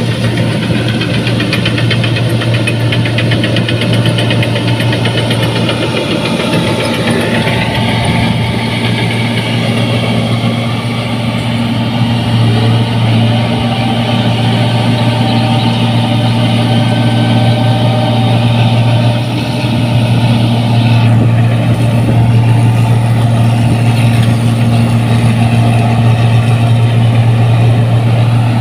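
New Holland Clayson 1545 combine harvester's diesel engine with turbo exhaust, running steadily under load with its cutting and threshing machinery working. A steady low drone that grows louder about two-thirds of the way through.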